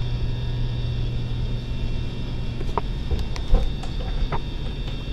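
A steady low hum with a few faint steady tones above it, with several short clicks and knocks in the middle, one of them louder about three and a half seconds in.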